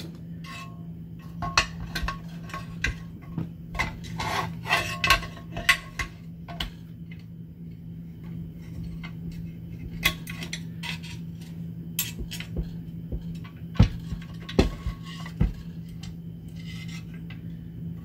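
Metal parts of a UFP A-60 trailer brake actuator (cast master cylinder, bracket and steel housing) clinking and knocking together as they are handled and fitted. There are two busy spells of clinks, some ringing briefly, with a quieter stretch between, over a steady low hum.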